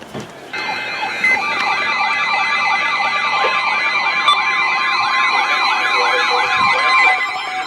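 Weather radio receiver's electronic alert siren: a fast warbling wail of about three sweeps a second over steady tones, starting about half a second in. It announces an incoming warning.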